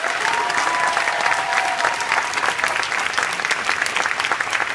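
Audience clapping steadily, with a long high cheer held over the first two seconds.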